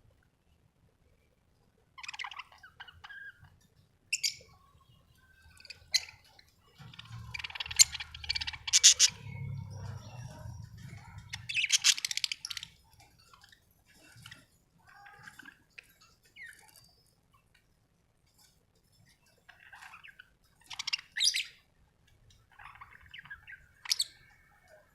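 Budgerigars chirping and warbling in irregular bursts of short, high calls, busiest and loudest in the middle, after a couple of seconds of quiet at the start.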